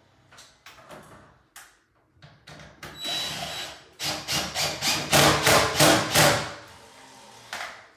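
Cordless drill run in short bursts at the metal dryer vent duct connection: a brief whir about three seconds in, then a louder run of quick pulsing bursts, with light handling clicks before it.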